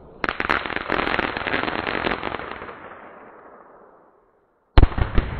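Fireworks going off: a sudden run of dense crackling pops that fades away over about three seconds, then after a short silence a loud bang followed by a couple more sharp reports.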